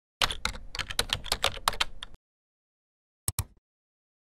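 Computer keyboard typing sound effect: a fast run of keystrokes lasting about two seconds, then, after a pause, two quick mouse-button clicks.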